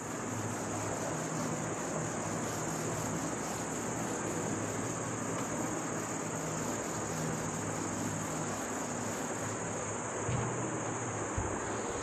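Crickets chirring steadily in one continuous high-pitched trill over a background hiss.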